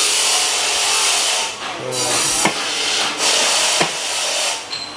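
Compressed air hissing in bursts from a pneumatic tool during exhaust-silencer assembly, with a couple of sharp metallic snaps.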